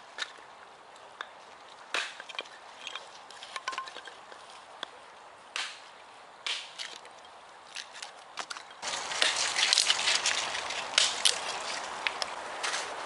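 Hatchet splitting kindling on a wooden chopping block: sharp chops and cracks of wood splitting, irregular and a second or more apart at first, coming thicker and faster after about nine seconds, when a louder steady hiss also comes in.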